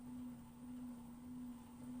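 Drying fan of an LG FWY606WWLN1 washer-dryer whining during the drying cycle: one steady tone that swells and fades a little under twice a second. The owner is unsure whether this whine is normal or a fault.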